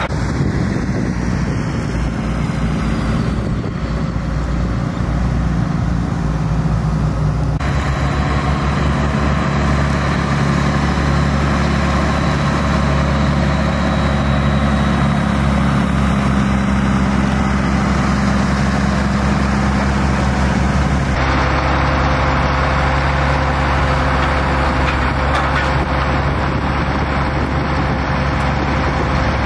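Diesel engine of a Mack log truck running steadily with a low, even drone; the sound shifts abruptly twice, about 8 and 21 seconds in.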